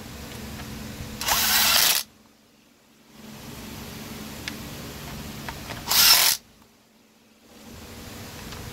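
Cordless drill/driver whirring in two short bursts, about a second in and again around six seconds in, backing screws out of a Stihl chainsaw's top cover.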